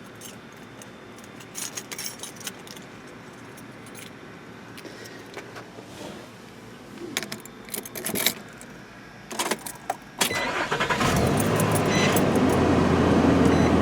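Keys jangling and small clicks, then about ten seconds in the truck's engine starts at once and settles into a steady idle. The quick start shows the battery, at 12.1 volts after powering a 12-volt fridge, still has plenty to start the truck.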